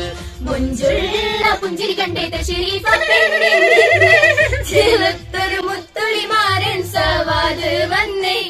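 Female voices singing a Malayalam song together, with a long wavering held note around the middle.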